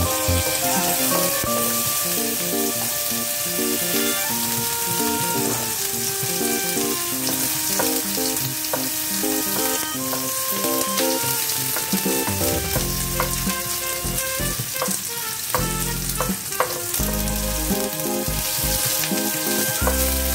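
Chopped onion and garlic sizzling in hot oil in a frying pan, stirred with a wooden spatula, with a few short knocks of the spatula against the pan. A melodic background music track plays alongside.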